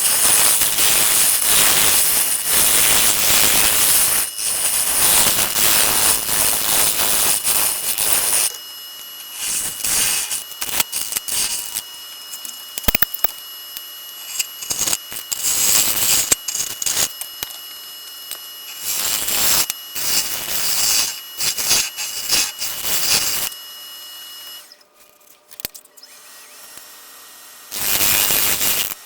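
Wood lathe running with a steady high whine while the spinning maple bowl is worked, with a loud rasping noise. The noise is continuous for the first several seconds, then comes in short, uneven stretches. The whine stops near the end.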